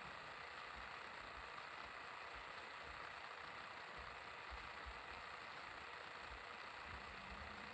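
Quiet, steady background hum and hiss of room tone, with faint low thuds now and then.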